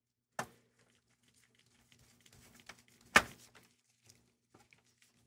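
Small handling knocks on a PS4 Pro's metal shield plate as screws are started by hand: a sharp knock early on, a louder one about three seconds in, and faint light ticks between.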